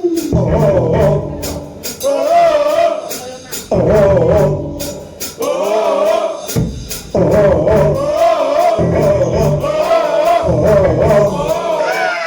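Men's voices singing a wavering melody together, with short breaks between phrases, over sharp rhythmic percussion.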